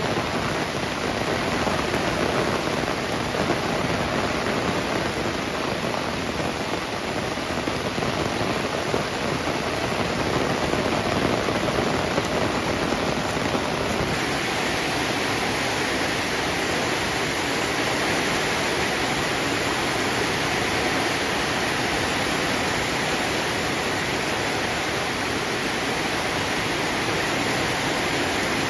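Heavy rain pouring steadily, a dense even hiss with no thunderclaps; about halfway through the higher part of the hiss grows a little stronger.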